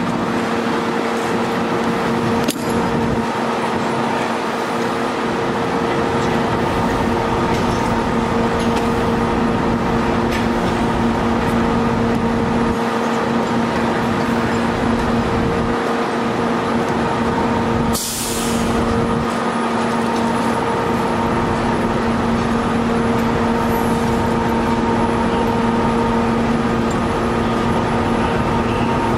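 Fire trucks' diesel engines running steadily at high idle, a constant engine hum. About eighteen seconds in comes a short hiss of released air, like an air brake.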